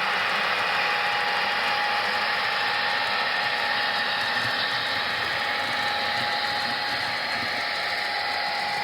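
N scale model California Zephyr train running, with Broadway Limited F7 locomotives at the head: a steady mechanical hum with a faint thin whine.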